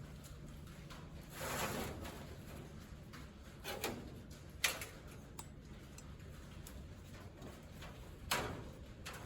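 Scattered clicks, knocks and short scrapes from hand work on farm machinery, four or five separate handling noises over several seconds.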